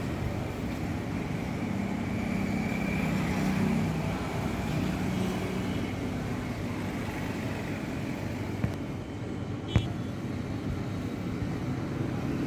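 Ship's engine running with a steady low drone. Two short sharp clicks come about a second apart past the middle.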